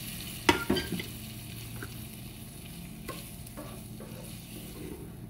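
Soy-sauce, onion and garlic sauce sizzling in a frying pan over a gas flame, stirred with a ladle that knocks against the pan. The sharpest clinks come about half a second to a second in, with fainter knocks after.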